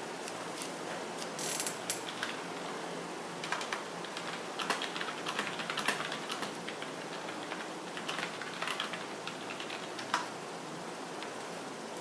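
Irregular light clicking and rattling of small hard objects being handled, in scattered clusters over a steady hiss, with one sharper click near the end.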